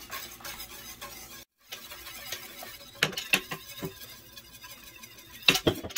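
Wire whisk scraping and clicking against the sides of a stainless steel stock pot as polenta is whisked into water, with a scatter of sharp clinks in the second half. The sound cuts out briefly about one and a half seconds in.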